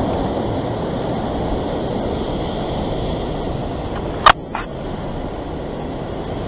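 Surf breaking and washing over shoreline rocks: a steady rush of churning swell. About four seconds in there is a sharp click, followed by a fainter one just after.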